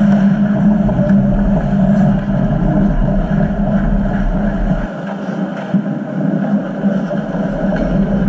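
Ice rink background sound: a loud, steady low hum, with a few faint clicks from play on the ice.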